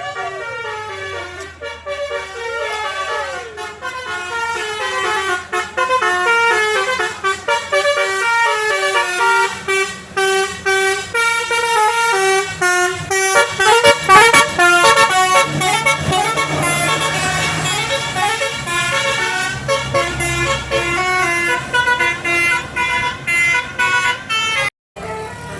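Bus telolet 'basuri' multi-tone musical horn playing quick melodic runs of stepped notes, opening with a few rising-and-falling swoops. It cuts out briefly near the end.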